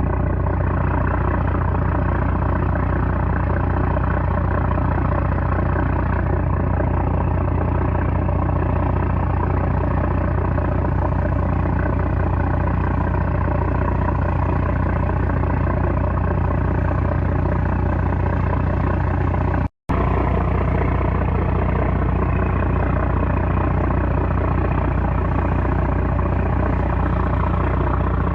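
A small trawler's 330-horsepower engine running steadily at a constant speed, with a heavy low hum. The sound cuts out for a split second about twenty seconds in.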